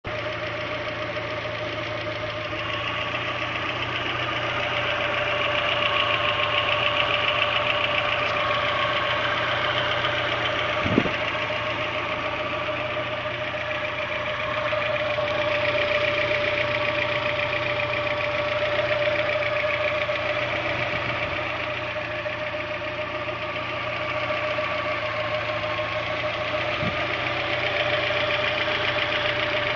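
Audi 80 engine idling steadily with a constant high whirring whine over it, the noise whose cause the owner is asking about. A single sharp click about a third of the way through.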